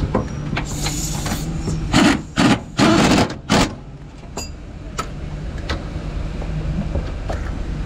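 A steady low mechanical hum runs throughout. About two seconds in come four short, loud rushes of noise, then a few faint clicks.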